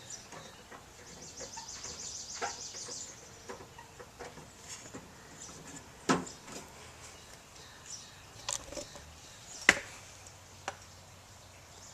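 Scattered clicks and knocks of a tailgate latch rod and plastic rod clip being handled and fitted inside the opened tailgate. There is a sharp click about six seconds in and the loudest near ten seconds. A rapid high chirping trill runs from about one to three seconds in.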